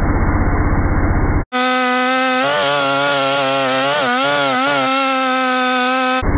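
Two-stroke chainsaw running at high speed with a steady whine; its pitch dips and recovers a few times near the middle as it takes load in the cut. Before and after this, a muffled low engine runs with a rapid pulse, switching abruptly at hard cuts.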